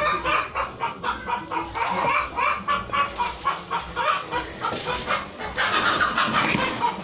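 Chickens clucking: many short repeated calls, growing louder and busier near the end.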